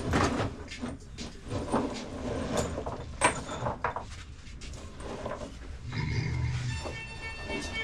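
Irregular knocks and clatter, like tools and metal engine parts being handled during an LS engine teardown. About six seconds in, music with strings comes in.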